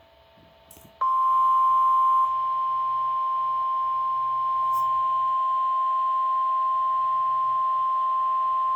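Weather radio warning alarm tone: a single steady, continuous beep that starts about a second in and holds without a break. It signals that a severe weather warning message follows.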